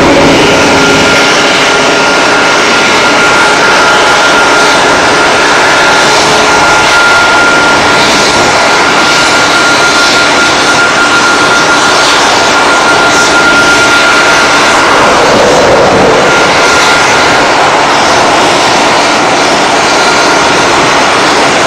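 Boeing 737-800's CFM56 jet engines running during pushback. A loud, steady rush carries a thin high whine.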